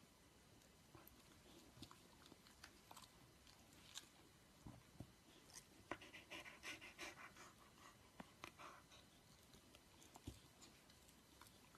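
Faint mouth sounds of a fluffy white dog: soft smacks and clicks of its jaws and tongue as it yawns and licks its lips. The sounds come in small scattered clicks, busiest a little past the middle.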